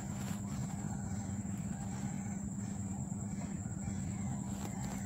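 A steady, high-pitched insect trill, cricket-like, runs over a low steady hum.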